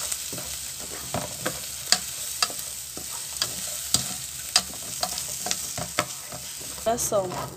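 Rice, onion and garlic frying in oil in an aluminium pot: a steady sizzle while a slotted spoon stirs, knocking against the pot in sharp clicks about every half second. This is the refogado stage, the rice toasting in the oil before water goes in.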